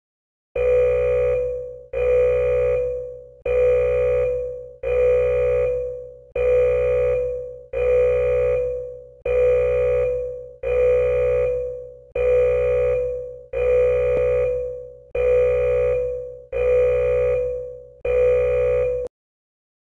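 A PC shutdown program's warning alarm, warning that a forced shutdown is about to happen unless it is cancelled. It is an electronic tone repeated thirteen times about one and a half seconds apart, each one starting sharply and fading. It stops abruptly near the end.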